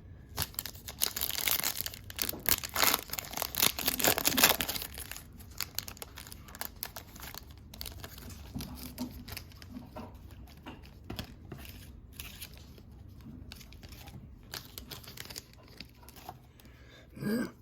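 A trading-card pack wrapper being torn open and crinkled, loudest for the first few seconds, followed by quieter scattered rustles and clicks as the cards are handled.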